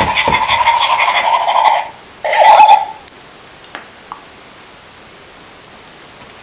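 A barking dog toy playing recorded dog barks through its small speaker: one long burst, then a shorter one about two seconds in.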